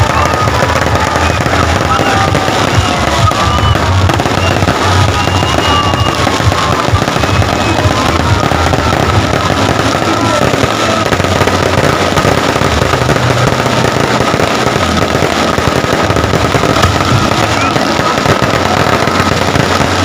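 A fireworks display crackling and popping without a break, dense bursts of small bangs one after another, with music playing underneath.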